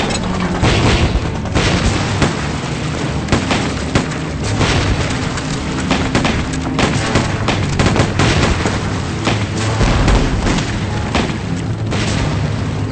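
Staged film battle: gunfire and repeated explosions in quick, irregular succession, with dramatic music underneath.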